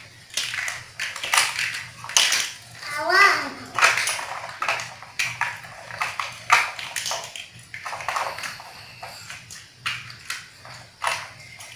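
Young children's voices talking, mixed with plastic toy building blocks clicking and clattering against each other and the tile floor as they are snapped together.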